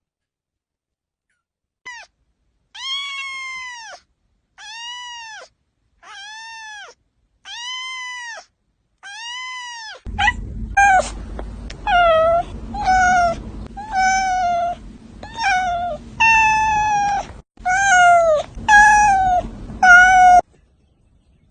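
A cat meowing over and over, each meow rising and then falling in pitch: first a run of about six evenly spaced meows, then from about ten seconds in a faster run of about a dozen meows over a low steady hum.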